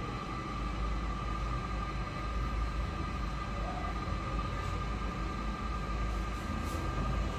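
Steady low rumbling hum with a thin steady whine above it, and a few faint ticks near the end.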